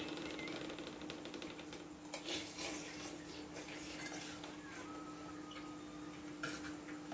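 A metal spoon scraping and clinking in a stainless steel bowl while eating, with a few short clinks about two seconds in and again near the end, over a steady low hum.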